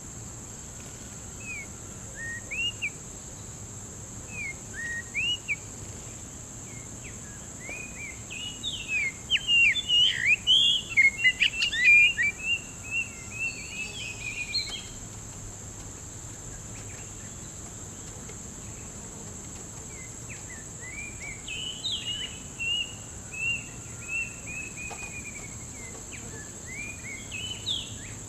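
Oriental magpie-robin singing in varied whistled phrases: scattered at first, then a dense, loud run of song about eight seconds in, and more phrases in the second half. A steady high insect drone runs underneath.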